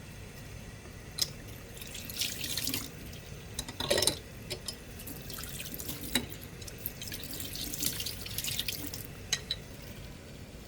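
Water from a sink tap splashing in short spells, with a few light knocks in between, as the cleaned stove knobs are handled in the sink.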